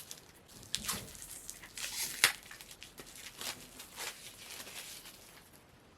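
Plastic wrapping being crinkled and torn while a Funko Soda collectible can is handled, with scattered clicks and scrapes and one sharper snap about two seconds in.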